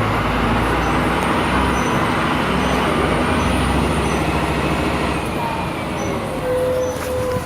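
Scania K310 IA city bus running in service: a steady diesel engine hum with road noise. About six and a half seconds in, a steady high-pitched tone sets in.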